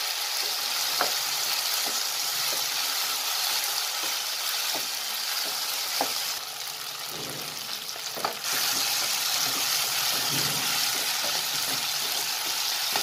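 Cauliflower, capsicum and onion in chilli sauce sizzling in a nonstick wok as a wooden spatula tosses them. The steady frying hiss is broken by scattered knocks and scrapes of the spatula on the pan. The sizzle drops away for a couple of seconds midway, then comes back.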